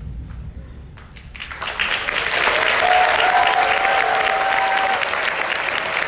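Music fades out at the start, then a conference audience breaks into applause about a second and a half in and claps steadily, with a held high tone sounding for about two seconds in the middle.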